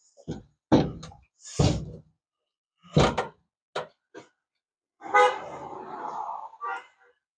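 Short knocks and clunks of hands and tools on metal from work under a pickup truck at its fuel tank, then about five seconds in a pitched sound lasting over a second.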